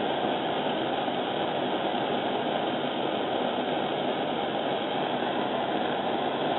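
Small handheld gas torch burning with a steady, even hiss.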